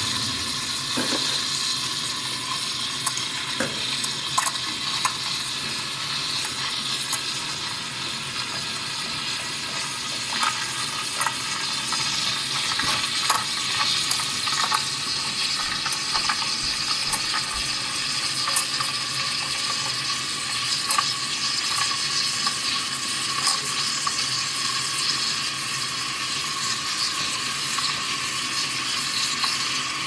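ECM espresso machine's steam wand, its two-hole tip freshly cleaned, hissing steadily into a pitcher of milk as it steams and heats it, with scattered small pops and crackles.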